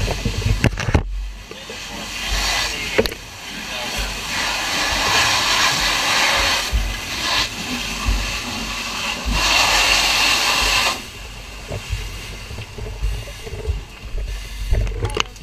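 Fire hose nozzle flowing water onto fire in several long hissing bursts, stopping about eleven seconds in, with low knocks of gear throughout.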